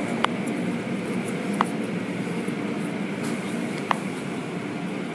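Automatic tunnel car wash heard from inside the car: its machinery and water spray run steadily, with three short sharp knocks spaced a second or more apart.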